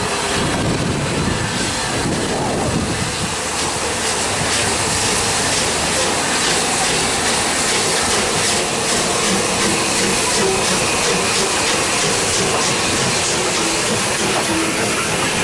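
Bulleid Battle of Britain class three-cylinder Pacific steam locomotive running past with its coaches: steam exhaust and hiss over a steady clatter of wheels on the rails.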